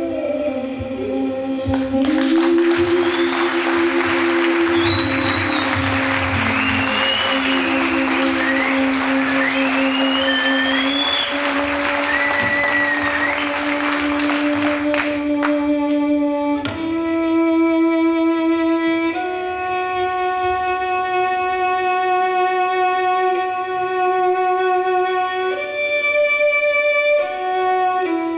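Violin music playing long held notes that change pitch a few times. In the first half, a loud hissing texture with high sliding tones lies over the held notes and stops at about fifteen seconds.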